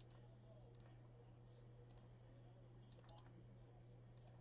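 Near silence with a steady low hum and a handful of faint, sharp clicks, some in quick pairs, from a computer mouse being clicked.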